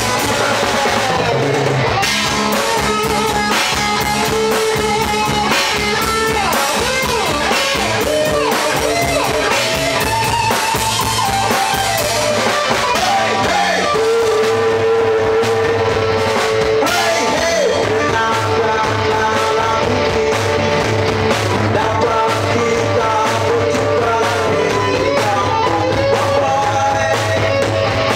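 Live rock band playing an instrumental: electric guitar carrying a melody with pitch bends and vibrato over bass guitar and drum kit.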